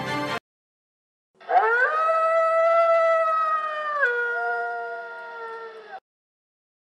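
A wolf howl: one long call that rises at the start, holds steady, drops in pitch about two-thirds of the way through and cuts off suddenly. It follows about a second of silence.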